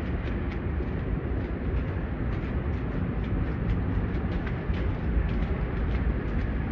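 City street noise: a steady low rumble of traffic and wind, with short crunching footsteps in snow about two a second.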